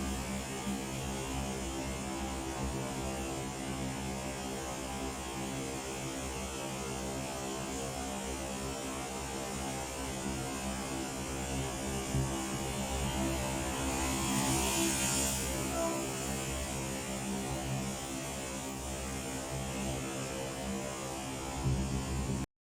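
A steady hum with an even hiss over it. The hiss swells briefly about fifteen seconds in, and the whole sound cuts off suddenly near the end.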